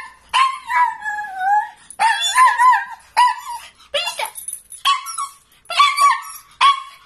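Small white dog barking in a run of about seven high-pitched yips with wavering pitch and short gaps between them.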